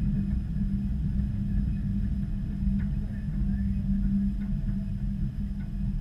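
Washing machine drum turning with a load of clothes, heard from inside the drum: a steady low rumble and motor hum, with faint clicks now and then.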